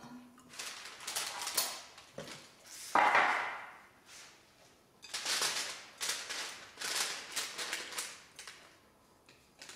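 Silicone spatula scraping a sticky oat, nut and honey mixture out of a glass mixing bowl in a series of scrapes. The loudest scrape starts sharply about three seconds in.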